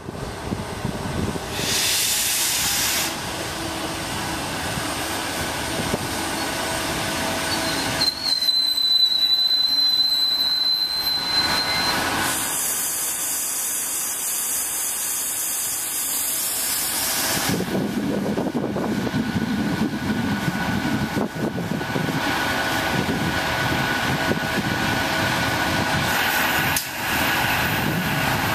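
SEPTA Silverliner II electric multiple-unit train passing close by: a continuous rush of wheel and rail noise. A thin, steady, high-pitched squeal holds for a few seconds near the middle, followed by a stretch of hiss.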